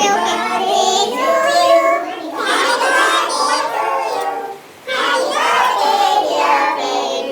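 A group of people singing together, several voices at once, with a short break about four and a half seconds in.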